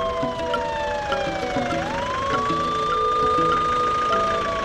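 Ambulance siren wailing. One slow cycle falls over about two seconds, sweeps quickly back up, holds, and starts falling again near the end.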